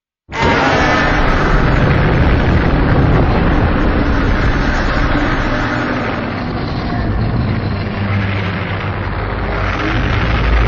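A Shin Godzilla sound effect: a loud, dense rumbling noise that starts abruptly just after silence and carries on steadily with a deep low end.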